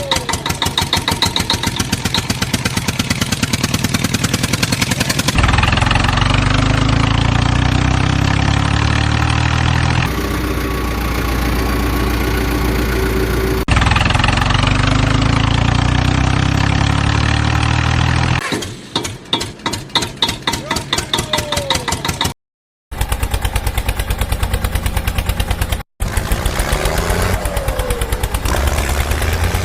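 Heavy vehicle engine running, idling and revving in a series of abruptly spliced segments, with two brief silent gaps.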